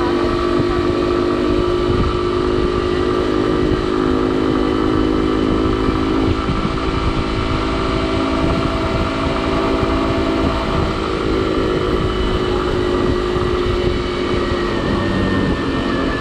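Motorcycle engine running steadily while the bike cruises, its note dropping slightly near the end, with wind rumbling on the microphone.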